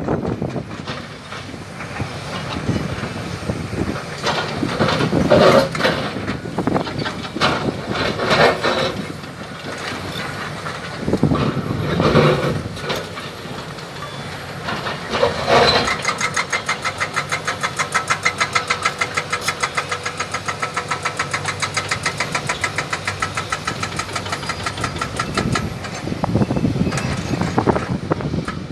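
Excavator diesel engines revving in irregular swells as they work. About halfway through, a hydraulic breaker starts hammering rock in a rapid, even series of blows that lasts about ten seconds.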